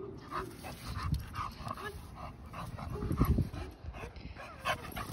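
Pocket American bully dog panting in quick short breaths, with a few brief whines, and low rumbles around three seconds in.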